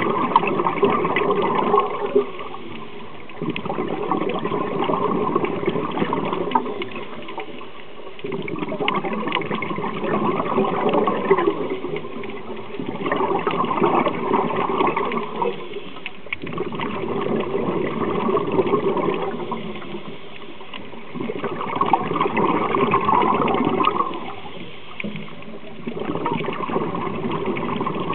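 A scuba diver breathing underwater through a regulator, exhaled bubbles gurgling and rushing in long bursts about every four seconds, with quieter gaps between breaths.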